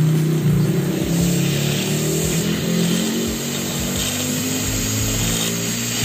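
A motor running with a low hum whose pitch shifts up and down.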